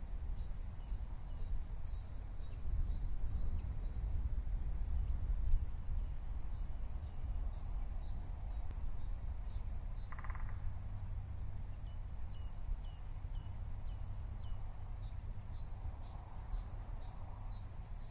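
Forest ambience: a steady low rumble under many small, high chirps scattered throughout, with one short pulsed call about ten seconds in.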